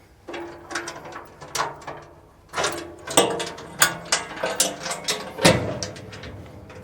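A series of sharp mechanical clicks and clanks, about a dozen over several seconds, with the loudest ones in the middle.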